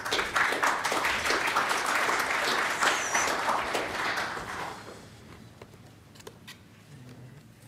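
Audience applauding, dying away after about five seconds, followed by a few faint clicks.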